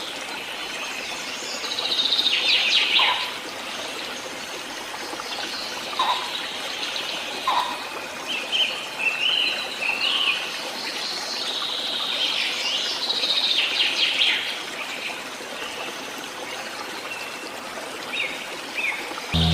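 Birds chirping and singing over the steady trickle of a stream, a nature ambience bed. The birdsong is loudest in two spells, about two seconds in and again past the middle. Music comes in at the very end.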